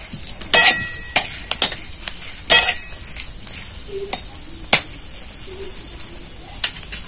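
Whole spices (bay leaves, black peppercorns, cardamom and cinnamon) sizzling in hot oil and ghee in a metal karai, with a spatula scraping and clinking against the pan in irregular strokes.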